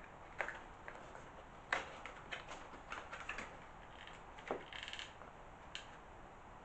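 Faint, irregular clicks and light taps from working a hot glue gun and handling the plastic viaduct and track-bed parts, with a brief scratchy rustle about five seconds in.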